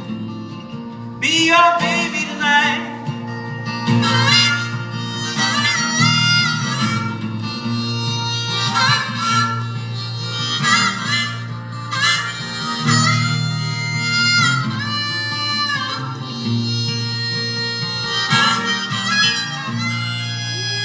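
Harmonica solo playing a melody of bent and held notes over steady guitar accompaniment in a live performance.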